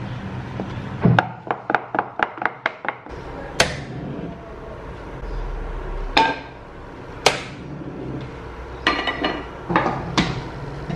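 A wooden spatula knocking quickly against a ceramic mixing bowl while batter is stirred, about four knocks a second, followed by scattered clanks and clinks of a frying pan and the bowl on the stove.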